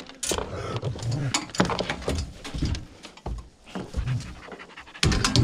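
Hunting hounds panting and shifting about inside a dog box on a pickup bed as they are loaded, with irregular knocks and rattles from the box, the loudest just before the end.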